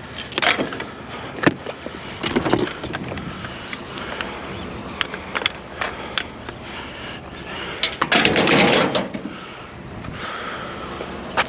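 Scrap items being handled and shifted around in a load, with scattered knocks and clanks and a louder scraping rush about eight seconds in.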